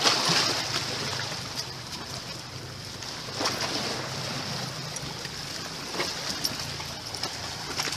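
Sea water washing and splashing against coastal rocks, a steady rushing, with a few short knocks of footsteps on the rocks.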